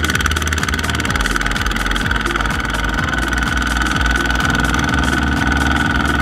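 Kubota two-wheel tractor's single-cylinder diesel engine running steadily under load as it hauls a trailer of rice sacks through mud, with a steady high whine over the engine note.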